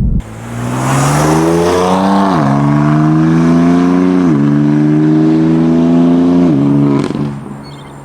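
BMW F82 M4's twin-turbo straight-six, fitted with catless downpipes and a tune, accelerating hard through the gears: the exhaust note climbs steadily in pitch and drops sharply at three upshifts, then falls away near the end.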